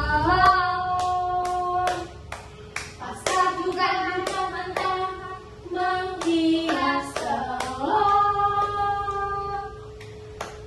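Children singing a song and clapping along in a steady beat.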